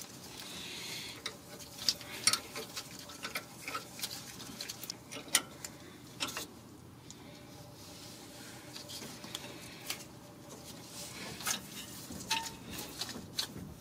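Quiet, irregular metallic clicks and taps from gloved hands handling the rear disc brake caliper and its hardware on a Ford F-150, with no steady rhythm.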